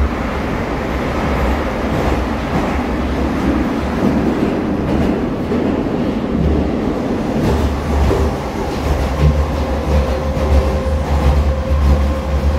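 Moscow metro train running at speed through a tunnel, heard from inside the car: a loud steady rumble of the moving train. A thin steady tone comes in about nine seconds in.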